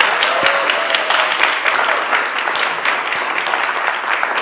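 Audience applauding, with a dense patter of many hands clapping.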